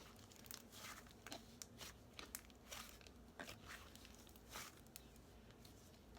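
Cloud cream slime with instant snow in it being stretched and squished by hand: faint, irregular crackles and soft squishes.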